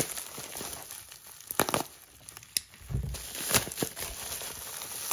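Plastic bubble wrap crinkling and rustling as it is pulled open by hand, with a few sharp crackles and a soft low thump about three seconds in.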